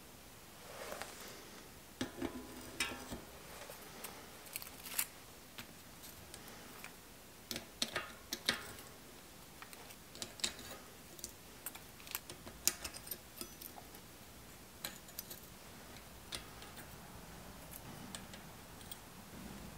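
Steel bicycle cassette cogs and spacers clicking and clinking as they are slid onto a rear hub's freehub body, with scattered sharp metal taps, a few of which ring briefly.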